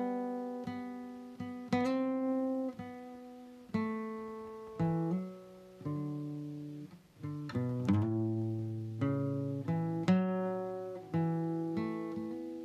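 Solo acoustic guitar playing an instrumental passage of a folk song: chords and single notes struck about once a second, each left to ring and fade.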